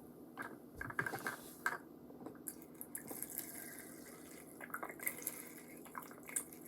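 Liquid slime activator poured into a small plastic measuring cup: a faint trickle with scattered drips and light clicks of plastic.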